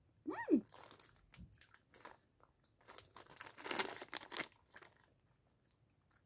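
Plastic candy bag crinkling as it is handled, in scattered rustles that build to a dense crinkle about three to five seconds in. Just after the start comes a brief voice sound falling in pitch.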